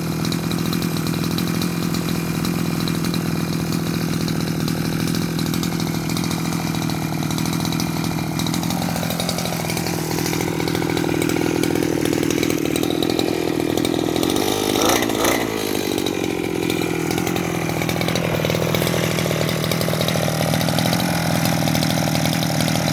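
Small two-stroke brush-cutter engine fitted to a drag bicycle, running steadily at high revs with a buzzing note. Its pitch drops about a third of the way in, and there is a brief louder surge about two-thirds through.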